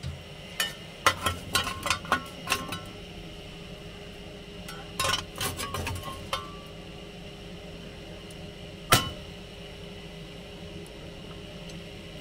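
Sharp metal clanks and clinks at the firehole door of a small narrow-gauge steam locomotive as it is worked by hand: a quick run of clanks in the first three seconds, another cluster around five to six seconds, and one loud single clank about nine seconds in.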